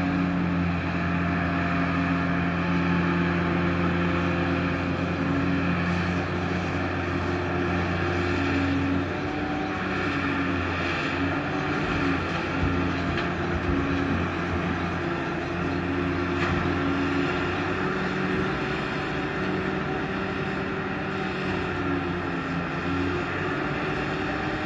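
Diesel engine of a large Hitachi tracked excavator running steadily while it digs. Its note shifts and wavers at times as the boom and bucket work.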